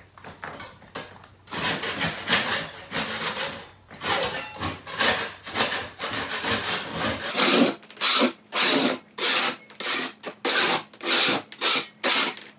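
A hand scraping blade scraping a drywall wall, knocking bumps and loose joint compound off along a crack before repair. The strokes are irregular at first, then settle into a steady run of about two a second in the second half.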